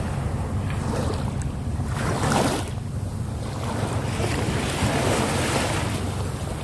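Sea waves washing on the shore, with wind buffeting the microphone in a steady low rumble; a wave breaks loudest about two and a half seconds in.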